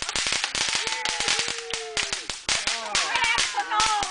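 Consumer fireworks going off in a fast, irregular run of sharp cracks and pops, many per second.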